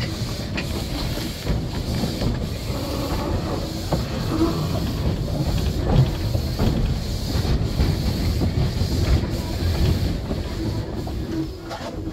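Narrow-gauge steam locomotive running along the line, heard from on board: a steady rumble of wheels on rail with frequent clicks and clanks, and some hiss of steam.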